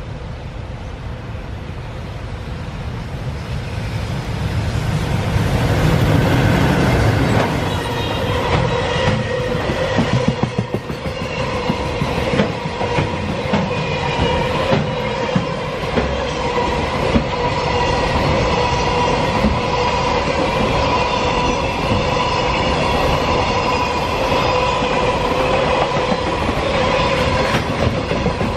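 A freight train hauled by an EF210 electric locomotive approaches and passes, louder over the first several seconds, then a long string of container wagons rolls by with wheels clicking over rail joints and a steady ringing tone under them.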